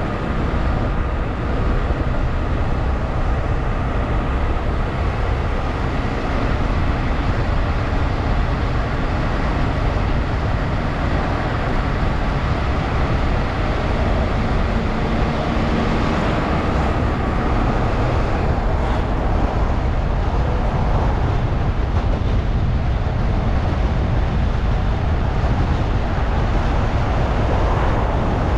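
Car driving along a road: steady tyre, engine and wind noise with a deep rumble underneath.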